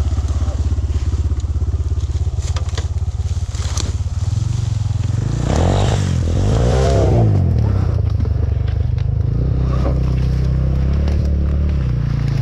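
Motorbike engine running as it rides slowly over rough forest ground. Its pitch rises and falls about halfway through, with scattered clicks and crackles over the engine note.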